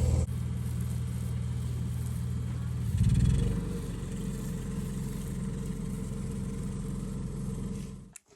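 Motor vehicle engine running steadily, with a brief rise in revs about three seconds in; it cuts off abruptly just before the end.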